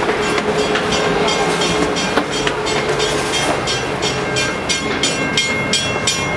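Heavy machinery of the bascule bridge running: a steady loud rumble, with a rapid even clatter of about four clicks a second that comes in about halfway.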